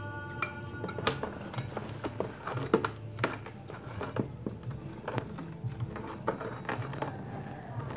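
Brass altar candlestick being scrubbed with a scouring pad in a basin of water: irregular scraping with sharp clicks and knocks of metal against the basin, and splashing.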